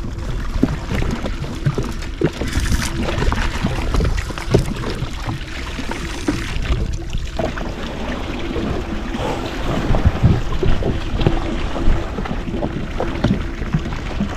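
Wind buffeting the microphone and water splashing and knocking against a jetski hull on open ocean, with many irregular knocks and a faint hum that comes and goes.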